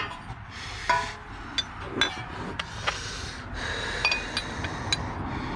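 Metal clinking and tapping, about eight or nine separate sharp clinks, some ringing briefly: a metal cover plate and its bolts being handled and fitted back on during an alternator refit.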